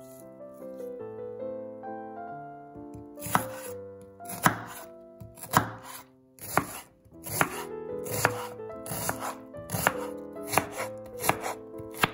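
Chef's knife chopping half a red onion on a bamboo cutting board: sharp knocks of the blade striking the board start a few seconds in, about one a second, coming a little quicker near the end.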